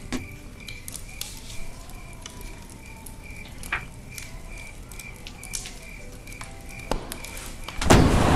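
Log fire crackling with scattered small pops. Near the end, a sudden loud blast starts and holds as a burst of flames.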